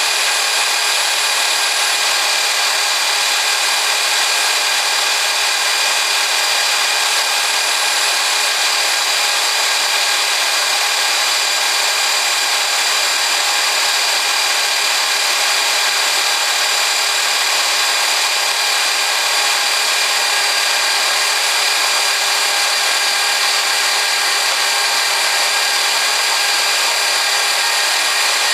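Rox RB-100 band saw running steadily, its blade cutting through a round pipe of 115 mm outside diameter, a constant whining, grinding saw noise without let-up.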